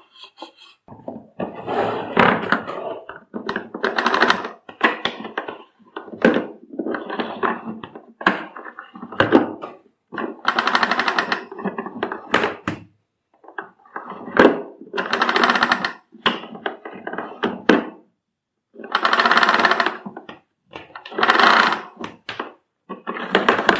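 Panasonic MC-CJ911 vacuum cleaner's retractable power cord reel being worked by hand after repair: clicks and knocks of handling, then four rapid rattling bursts of a second and a half to two seconds each, as the cord is pulled out and the freed spring reel winds it back in.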